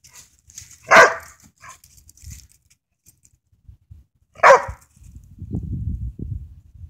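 Yellow Labrador barking twice, two single sharp barks about three and a half seconds apart. A low rumble follows near the end.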